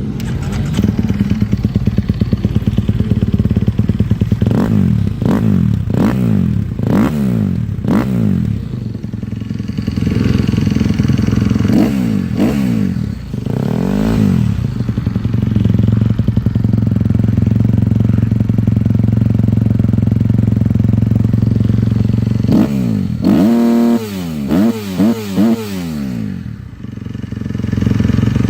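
2025 Kawasaki KX250 four-stroke single-cylinder motocross engine with an HGS exhaust, revved in a series of quick blips and then held at a steady higher speed for several seconds. Another run of rapid blips follows near the end before it settles back.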